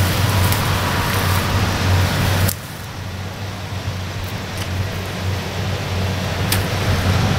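Rice combine harvester's engine running steadily with a low hum. About two and a half seconds in, the hiss above the engine drops off suddenly while the hum carries on.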